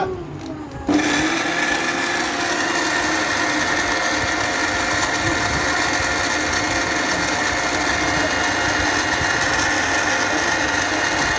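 A Panasonic MX-AC555 mixer grinder's 1000-watt motor switches on abruptly about a second in and runs at a steady speed with a whine, grinding cumin seeds.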